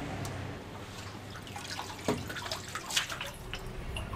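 Lake water lapping and dripping at the waterline, with a couple of short clicks about two and three seconds in.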